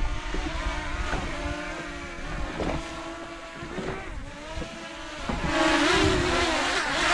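Small quadcopter drone's propellers whining, the pitch wavering up and down as it is flown in strong wind, getting louder in the last second and a half as it comes in close. Wind rumbles on the microphone underneath.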